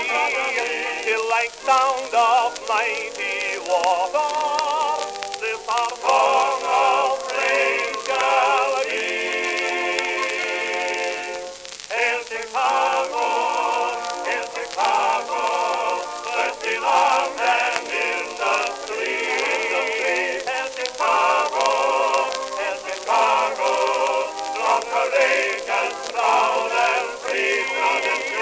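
1921 acoustic-era 78 rpm disc recording of a tenor and a male vocal quartet singing a popular song. The sound is thin, with no bass, and the voices waver with vibrato.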